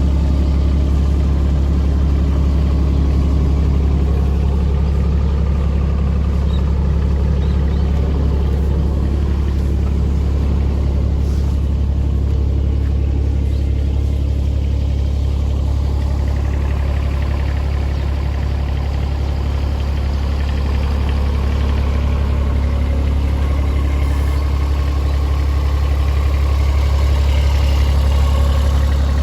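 Kubota excavator's diesel engine running steadily with a low, even engine note.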